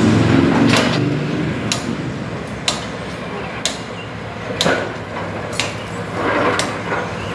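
Sharp metallic clanks, about one a second, seven in all, with a low machinery rumble in the first second.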